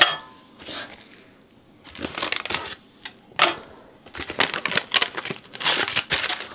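A sharp metallic clink as a cracker is set down on a stainless steel tray, then from about two seconds in, repeated crinkling of a brown plastic MRE cracker pouch as a cracker is worked out of it.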